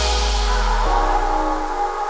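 Electronic background music: a deep bass note fading out while a sustained synth chord comes in about a second in.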